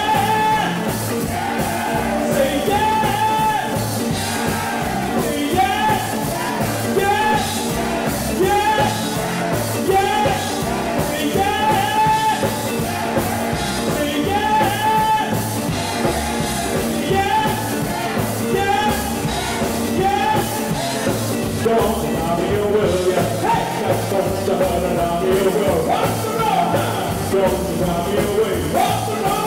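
Live rock 'n' roll band playing: electric guitar, bass and drums driving a steady beat, with a short melodic figure repeating about once a second.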